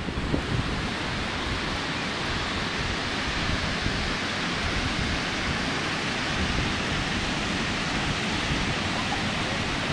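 Steady rush of ocean surf breaking on the beach, mixed with wind buffeting the camcorder's microphone.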